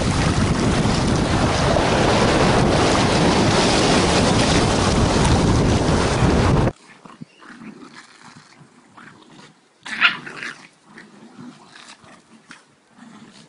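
Heavy wind buffeting the microphone over beach surf, cut off suddenly about seven seconds in; then, much quieter, two small dogs growling in short bursts as they play tug-of-war, with one louder, higher dog cry about ten seconds in.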